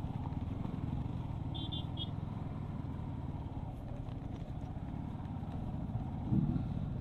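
Yamaha R15 V3's single-cylinder engine running steadily while ridden slowly off-road, a low rumble, with a brief louder burst a little after six seconds in.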